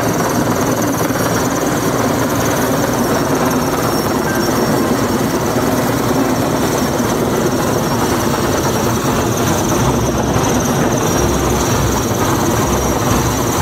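Sikorsky S-64 Skycrane heavy-lift helicopter hovering under a sling load: steady, loud rotor and turbine noise with a thin high whine running through it.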